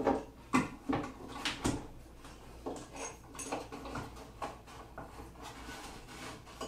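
Handling sounds of a pocket-hole clamp being fitted to wooden cabinet boards: a few sharp clicks and knocks in the first two seconds, then fainter scattered clicks.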